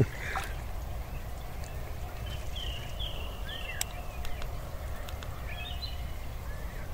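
Short chirping bird calls, a quick run of them about two and a half seconds in and another near the end, over a low steady rumble with a couple of faint clicks.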